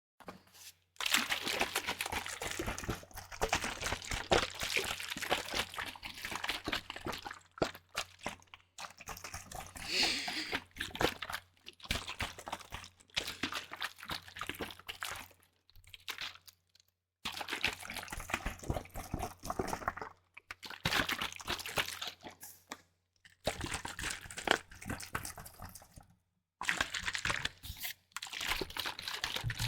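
Close-miked liquid sounds from a leaking bottle being handled: dense wet crackling and dripping with some plastic crinkling, cut by several brief silences.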